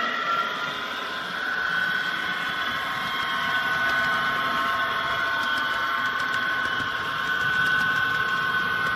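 HO-scale model locomotive running along the track: a steady high whine from its motor and gears over the rumble of wheels on the rails, rising slightly in pitch about a second in.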